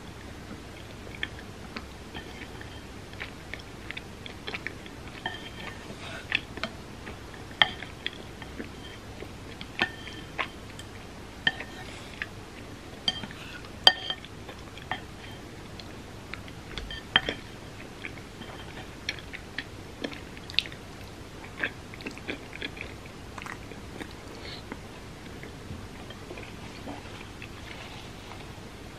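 A person chewing and biting food, with irregular short, sharp mouth clicks scattered throughout.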